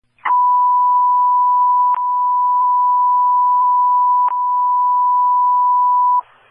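A fire dispatch alert tone over a radio channel: one steady, high, single-pitch tone lasting about six seconds, with two short clicks about two and four seconds in. It cuts off suddenly into radio hiss near the end, the alert that comes before a fire dispatch announcement.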